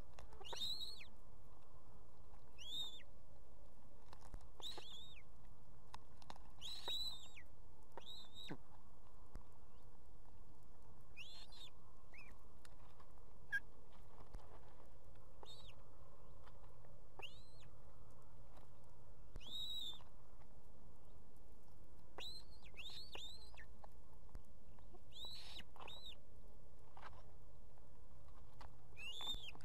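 Ospreys calling at the nest: short, high whistled notes, each rising and then dropping, repeated every second or two and sometimes two or three in quick succession, over a steady low hum.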